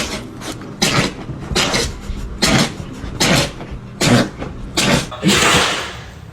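An animal sneezing in a rapid series: about eight short, sharp sneezes, each under a second after the last, with the final one longer.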